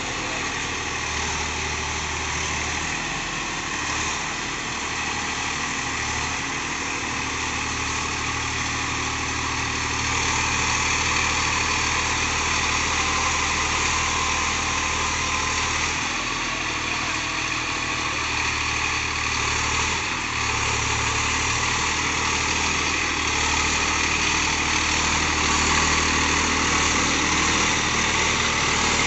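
Sonalika DI-740 tractor's diesel engine running steadily while working a field, getting a little louder about ten seconds in.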